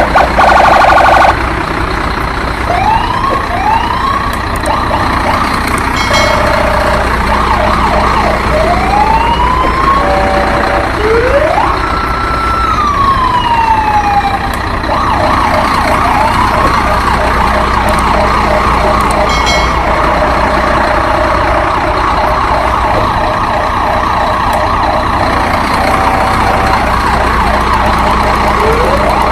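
Siren-like sound effects: short rising whoops, long tones that rise, hold and glide back down, and fast runs of repeated beeps, all over a steady loud noisy bed.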